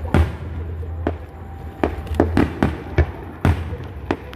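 Aerial fireworks going off in quick succession: about nine sharp bangs and cracks at uneven intervals over a steady low rumble.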